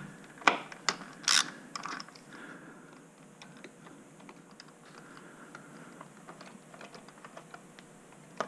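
Clicks and light ticking of a hand driver with a hex bit turning out a 5/32 screw from a motorcycle's inner fairing dash. A few sharp clicks come in the first two seconds, then a run of faint ticks.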